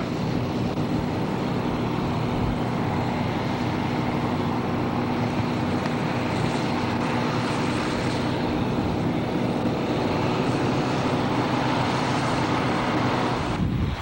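Heavy farm harvest machinery engine running steadily, a hum of several even tones under a wash of mechanical noise. The sound breaks off briefly near the end.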